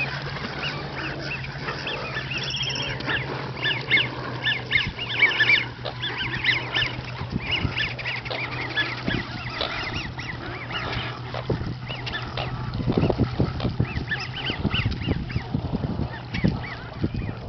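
A flock of geese honking in many short, overlapping calls, busiest in the first half.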